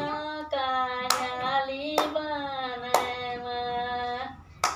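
An elderly woman singing in long, held notes while clapping her hands about once a second; the singing stops shortly before the end, followed by one last clap.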